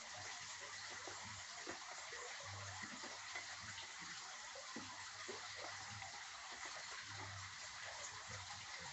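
Wood fire in a stone hearth, its glowing embers crackling faintly with small irregular pops over a steady hiss as fish grills on the coals.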